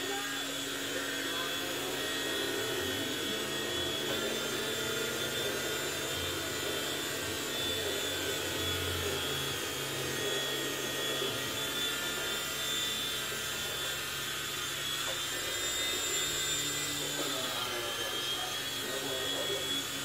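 Toy remote-control helicopter's small electric motors and rotors whirring in flight: a steady high whine whose pitch wavers with the throttle and dips briefly near the end.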